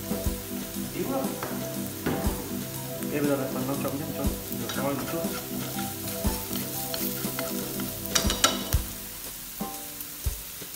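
Minced lemongrass, chili and garlic sizzling in oil in a nonstick frying pan, stirred with a wooden spatula. A few sharp clicks of the spatula against the pan come about eight seconds in.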